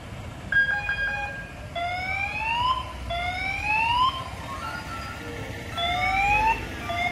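An electronic siren: a short steady tone with a couple of brief blips, then three rising whoops, each about a second long.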